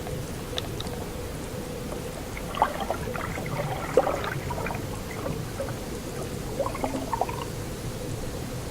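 Underwater ambience: a steady rushing noise with a faint hum, and two clusters of short crackles and pops a few seconds apart.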